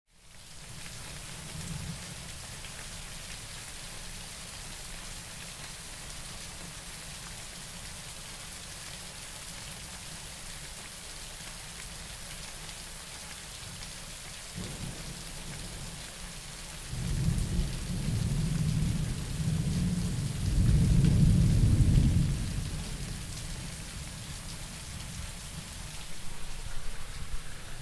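Steady rain hissing with a long roll of thunder: faint low rumbles early on, then a heavy rolling rumble swelling about two-thirds of the way through, loudest for several seconds before fading back under the rain.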